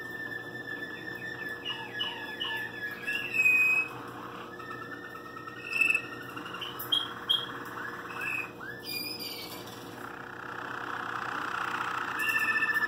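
Waterslager canary singing a continuous varied song. It opens on a long held note, then moves through runs of quick falling notes, trills and short whistles. About a second before the end it breaks into a fast, even roll.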